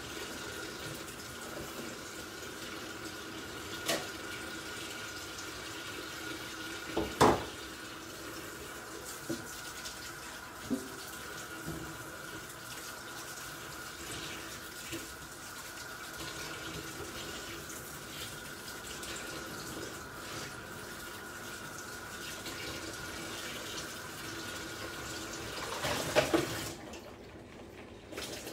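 Kitchen tap running steadily into a sink while mushrooms are rinsed under it, with a few sharp knocks, the loudest about seven seconds in. The water is shut off suddenly shortly before the end.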